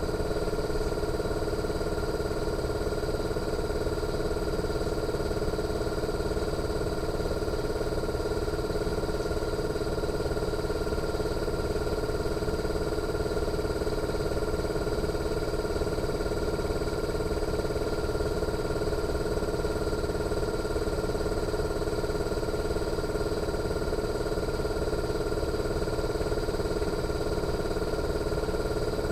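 Fujitsu General AO-C28H inverter air conditioner outdoor unit running in defrost mode: a steady compressor hum with several constant whining tones over a low rumble.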